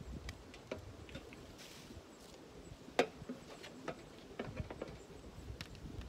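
Irregular light clicks and knocks, scattered and unevenly spaced, the sharpest about three seconds in.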